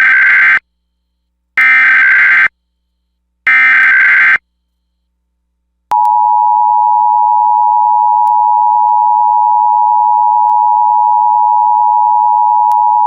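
Emergency Alert System tones: three one-second bursts of the warbling digital SAME header data, then after a short gap the steady two-tone EAS attention signal (853 and 960 Hz) begins about six seconds in.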